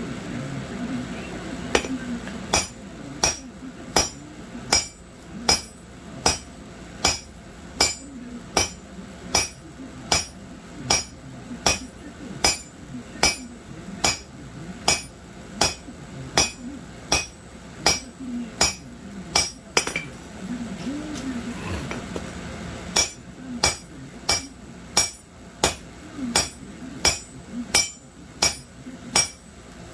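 Blacksmith's hand hammer forging steel on an anvil in a steady rhythm, about one blow every 0.8 s, each blow with a bright metallic ring. The blows stop for a few seconds past the middle, then resume at the same pace.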